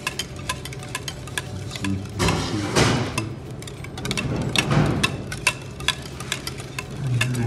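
Kitchen utensil tapping and clicking against a bowl in quick, irregular strokes, with two longer scraping swishes about two and a half and five seconds in.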